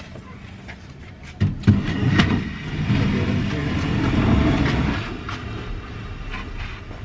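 Heavy live-edge wood slab being handled: a few knocks about a second and a half in, then a rough scraping rumble as it slides across a plywood cabinet frame, easing off about five seconds in.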